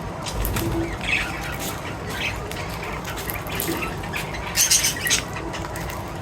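Short high squawks and chirps from small pet animals at feeding time, with scattered clicks and a quick burst of sharp calls near the end.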